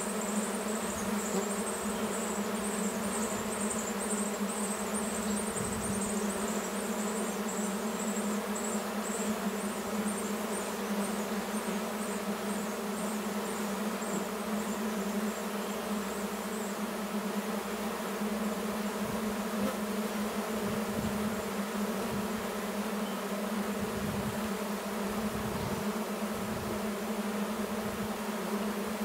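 Many honey bees buzzing in a steady, dense hum as they swarm over a feeder. A high, rapid chirping sounds behind it and stops a little past halfway through.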